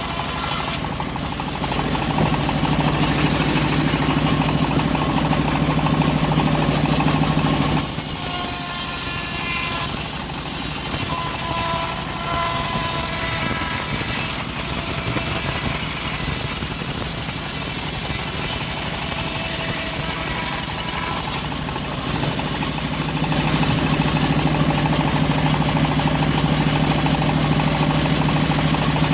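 Homemade engine-driven bandsaw sawmill running steadily. Its deep hum is louder from about two to eight seconds in and again from a little after twenty seconds, with a lighter stretch between that carries faint whining tones.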